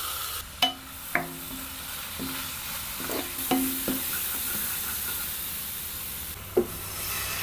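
Tomatoes, onions and spices frying with a steady sizzle in a stainless steel kadhai while a spatula stirs and scrapes them. The spatula knocks against the pan about six times, each knock ringing briefly.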